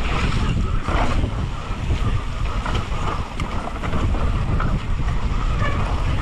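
Wind buffeting the on-bike camera's microphone and the rumble of a mountain bike's tyres over a leaf-covered dirt trail at speed, with scattered knocks from the bike over rough ground.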